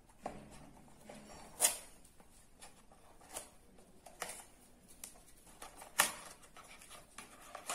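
Small cardboard box being handled as its paper seal sticker is picked at and peeled and the flap pulled open: soft paper rustling broken by a few sharp crackles and clicks, the loudest about a second and a half in and again around six seconds in.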